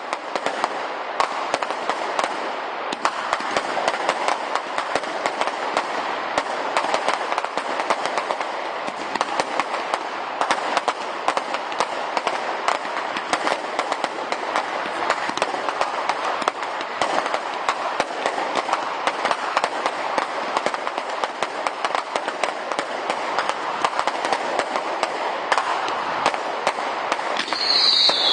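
Fireworks crackling and popping densely and without a break, a continuous crackle made of many quick sharp pops. Near the end a loud, high whistle sets in and falls in pitch.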